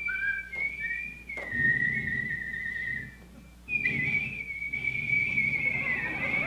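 A person whistling a slow tune in long, high held notes that waver slightly, with a short break about three seconds in.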